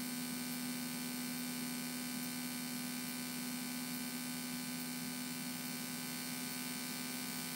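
Steady electrical hum on the Cessna 172's cockpit radio and intercom audio feed between transmissions, one unchanging tone with faint overtones.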